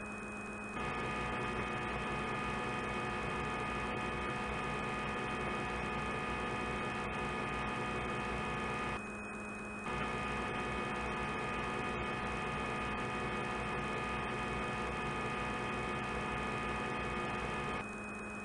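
Steady electric hum of a CNC lathe running its roughing cycle, made of several fixed tones. It drops back briefly about nine seconds in and again near the end.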